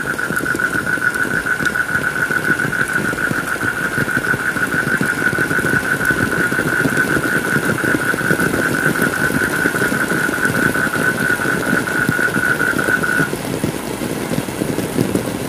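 Heavy rain falling as a dense, steady patter, with a steady buzzing high tone over it that cuts off suddenly about thirteen seconds in.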